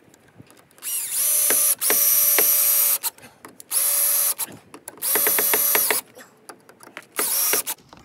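Cordless drill driving #10 × 1¾-inch screws into a wooden gate post to fasten a latch bracket. The motor runs in five short bursts, each spinning up quickly to a steady whine, with brief pauses between.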